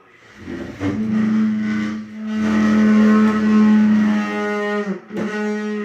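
A chair creaking in a long, steady, pitched groan held for about four seconds, breaking off briefly near the end and then starting again.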